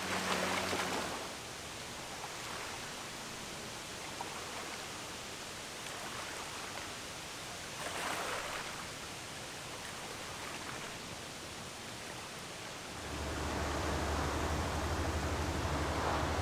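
A ship's horn sounding and ending about a second in, then steady wind and water noise. About three-quarters of the way through, the low, steady engine hum of a passenger ferry passing close takes over, with the rush of its bow wave.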